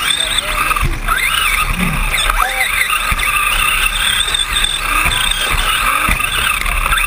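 Electric radio-controlled 2WD short course trucks racing: several motors and gearboxes whining, the pitch rising and falling again and again with the throttle.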